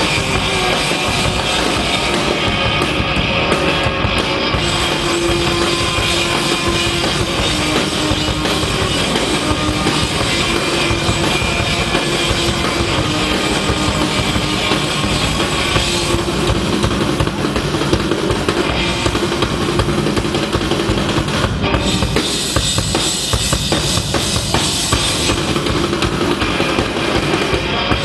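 Rock band playing live: drum kit and electric guitars through amplifiers, loud and dense throughout.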